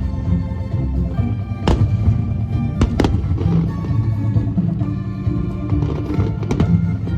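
Fireworks shells bursting in several sharp bangs, a few early on and a cluster of smaller ones near the end, over steady string orchestra music.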